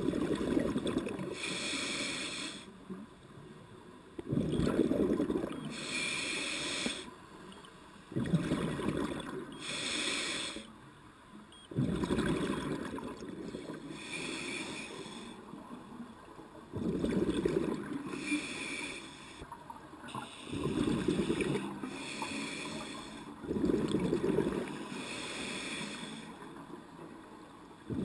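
Scuba diver breathing through a regulator underwater: a hissing inhale followed by a louder rush of exhaled bubbles, repeating about every four seconds, seven breaths in all.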